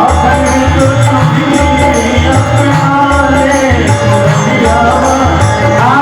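Devotional bhajan music playing: a melody line over bass notes that step from one to the next, with a steady beat of light percussion.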